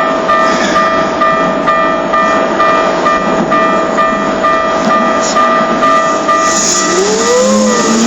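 Japanese level-crossing alarm ringing in a fast repeating pattern while a Keikyu train runs through the crossing. Near the end, a low tone begins to rise.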